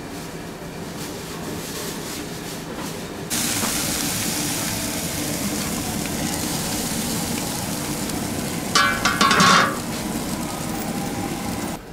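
Pork and pig heads boiling in a large cast-iron cauldron (gamasot): a steady hiss of bubbling and steam that grows louder and brighter about three seconds in as the heavy iron lid is lifted. About nine seconds in comes a loud, ringing metal scrape and clatter as the lid is slid back onto the rim.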